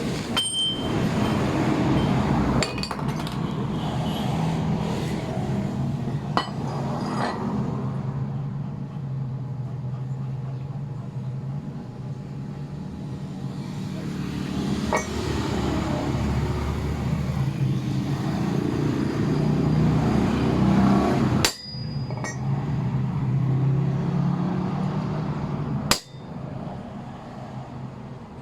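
Steady low background hum with a few sharp metal clinks from tools working on an AC compressor pulley to remove its bearing.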